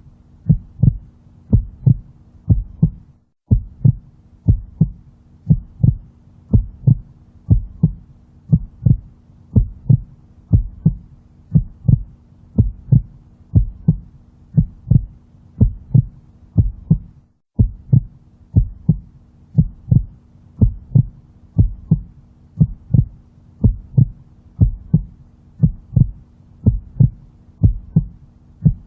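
Heartbeat sound, steady low thumps at about one and a half beats a second, over a faint steady hum. The track breaks off for a moment twice.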